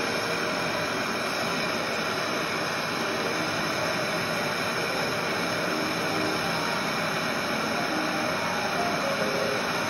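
Hand-held gas torch flame hissing steadily while brazing a trumpet piston.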